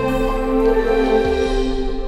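Background music: instrumental, with long held notes and chords.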